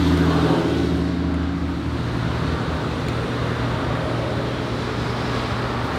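AMC 390 V8 engine running steadily during camshaft break-in, its level easing slightly over the first couple of seconds.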